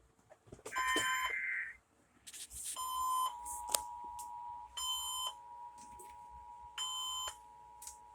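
Emergency Alert System SAME digital data bursts: a harsh screech about a second in, then three shorter bursts about two seconds apart. A faint steady tone runs under them from about three seconds in.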